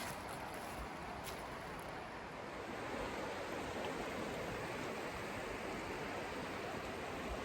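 Gale River flowing high with thaw meltwater: a steady, even rush of water.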